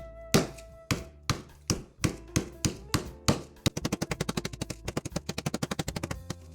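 Chicken breast being pounded flat between sheets of plastic wrap: sharp strikes, spaced out at first, then a fast run of rapid blows from about three and a half seconds in.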